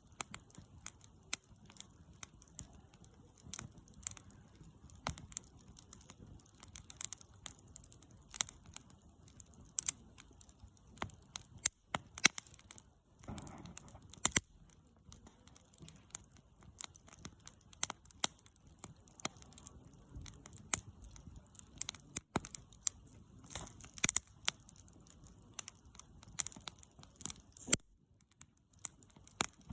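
Wood campfire crackling, with irregular sharp pops and snaps over a faint low hiss.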